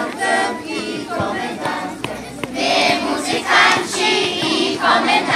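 A large group of children singing together in chorus, swelling into loud bursts of several voices at once.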